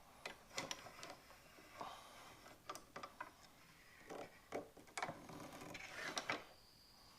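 Faint scattered clicks and short rubbing sounds of small metal and wooden pen-kit parts being handled and fitted together by hand.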